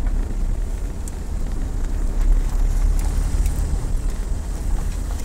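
Low, steady rumble of a car's engine and tyres, heard from inside the cabin as the car rolls slowly into a car park to park.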